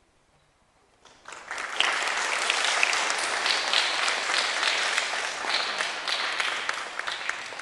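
A church congregation applauding. The clapping starts about a second in after a brief hush and tapers off near the end.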